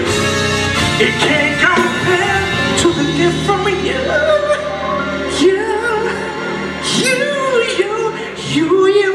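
Live gospel-soul performance: a male singer's voice sliding through ornamented notes over a live band.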